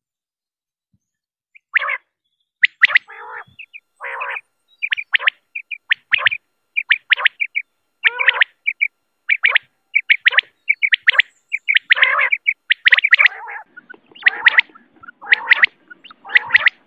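Quail calling over and over in short, sharp notes, some in quick groups of two or three. The calls begin about two seconds in and come faster and overlapping toward the end, with a low hum underneath in the last few seconds.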